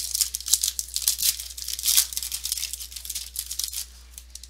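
Foil trading-card pack wrapper being torn open and crinkled by hand, a dense crackling that dies away near the end.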